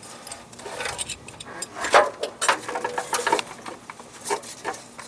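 Metal hand tools and puller parts clinking and knocking as they are handled, in irregular clicks. One sharper knock comes about two seconds in, followed by a brief ringing tone.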